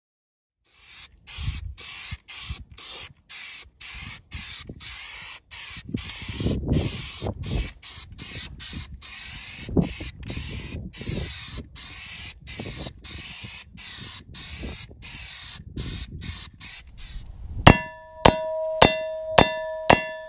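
Aerosol spray paint can hissing in a long string of short bursts as the steel target plate is repainted. Near the end, rapid rifle hits on the AR550 steel target plate: about five loud ringing clangs roughly half a second apart, each holding a steady metallic pitch.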